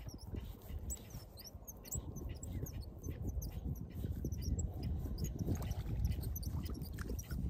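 Wind and water noise on choppy open water, a fluctuating low rumble, with many short high-pitched chirps scattered through it.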